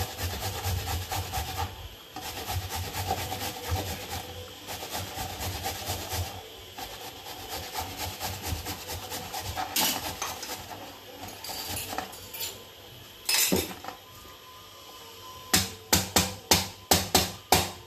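Vegetables being grated by hand, in quick rasping strokes, for the first several seconds; then a single knock, and near the end a quick run of about nine sharp knocks from chopping on a board.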